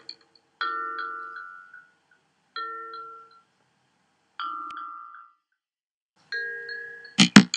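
Bell-like struck tones, mallet percussion in character: four separate notes about two seconds apart, each several pitches together ringing and dying away within about a second. Near the end comes a quick run of sharp clicks.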